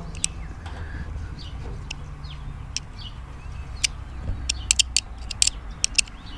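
Sharp little metal clicks and scrapes of a thin metal tool picking softened, boiled paint out of a screw's head, scattered at first and coming in a quick cluster about four to six seconds in.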